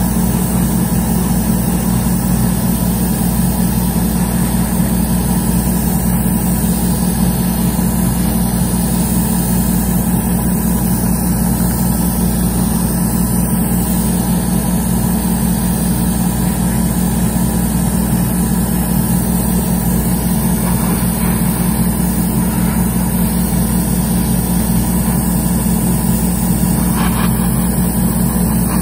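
Airbrush compressor running steadily: a constant low hum with an even hiss of air as the airbrush sprays paint.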